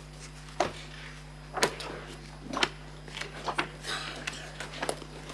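Pages of a bound document bundle being turned and handled near a microphone: several sharp paper snaps and knocks, about a second apart, with some rustling, over a steady low electrical hum.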